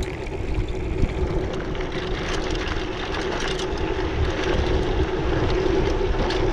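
Mountain bike rolling fast down a hard-packed dirt trail: the tyres give a steady hum that grows a little louder as the bike gathers speed, with scattered clicks and rattles from the bike and wind rumbling on the camera microphone.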